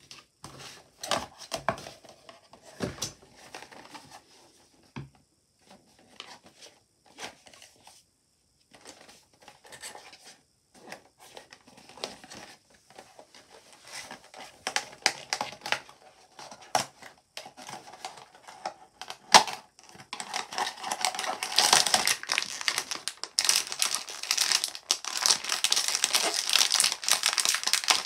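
Scattered taps, clicks and scrapes of a small cardboard blind box being handled and opened, then from about twenty seconds in, dense, louder crinkling of the thin plastic bag that wraps the figure inside.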